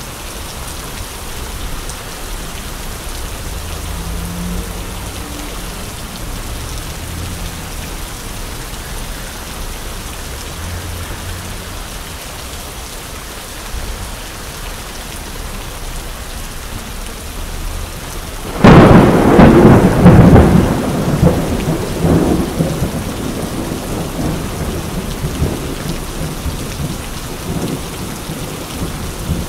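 Steady rain falling on an umbrella and wet pavement, with a sudden loud thunderclap a little past halfway that rumbles and crackles away over several seconds.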